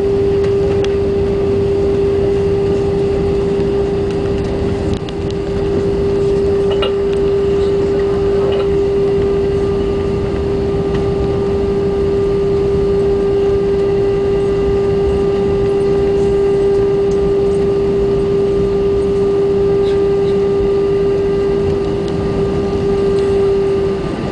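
Airbus A320 cabin noise over the wing during the landing rollout: a steady low rumble from the engines and airflow, with a constant mid-pitched hum.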